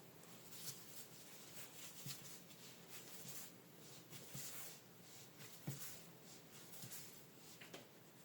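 Faint kitchen handling sounds: soft rustling and scraping with scattered light taps, one a little louder about five and a half seconds in.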